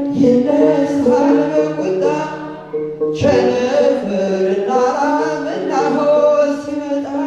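A sung hymn with instrumental backing, the voice holding long notes over a steady low tone, with a short break about three seconds in.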